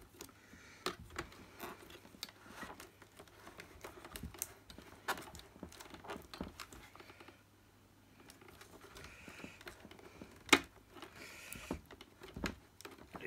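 Scattered plastic clicks, knocks and rustling as a corrugated vacuum hose is worked out of its holder inside an Electrolux 502 upright's opened plastic body, with one sharper knock about ten and a half seconds in.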